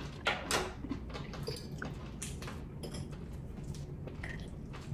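Forks clinking and scraping on plates while noodles are eaten: a handful of short, quiet clinks and scrapes.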